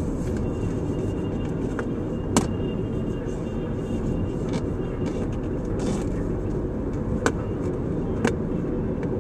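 Steady low rumble of a car cruising at speed on a highway, heard from inside the cabin: engine and tyre noise at an even level. Three sharp clicks cut through it, one a little over two seconds in and two close together near the end.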